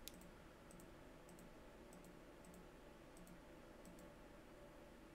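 Near silence with faint computer mouse clicks, each a quick press-and-release, about one every two-thirds of a second, stopping about four seconds in.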